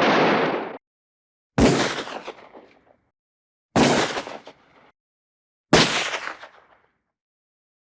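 Vintage film and TV stock gun sound effects: a sustained blast of gunfire that cuts off abruptly under a second in, then three single gunshots about two seconds apart, each with an echoing tail.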